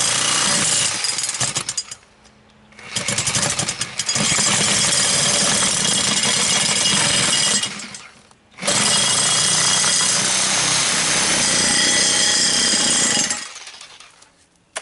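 Handheld power tool running in three long bursts, cutting through the old dry-rotted rubber tire to get it off the lawn tractor's rim. It stops briefly about two seconds in and again about eight seconds in, and winds down near the end.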